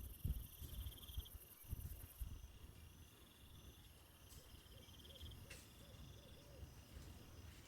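Faint insects trilling in short repeated bouts, with a low rumble in the first couple of seconds and a single sharp click about five and a half seconds in.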